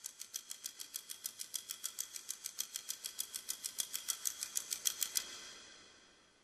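Rapid, evenly spaced light clicking at a computer keyboard and mouse, about nine clicks a second, stopping a little after five seconds in.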